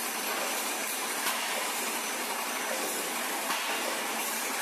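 Steady workshop machinery noise, an even hiss-like din, with a few faint clicks at about one, three and a half, and four seconds in.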